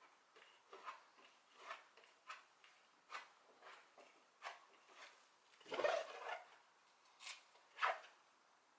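Fiberglass body filler being worked by hand with a spreader: short scraping strokes, roughly one a second, with a longer, louder scrape just before the six-second mark.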